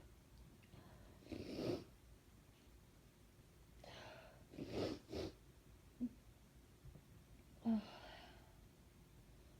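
A woman sneezing repeatedly: a sneeze about a second and a half in, two sharp ones close together near the middle, and another about eight seconds in, with quieter breaths between.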